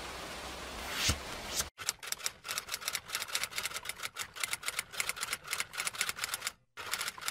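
A typing sound effect: rapid, irregular key clicks start about two seconds in, pause briefly near the end, then resume. Before the typing there is a steady hiss with a short whoosh swelling up about a second in.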